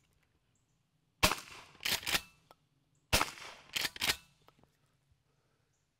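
Two shots from a pump-action shotgun firing less-lethal hydrokinetic water-shot shells, about two seconds apart. Each shot is followed by a double clack as the pump action is cycled.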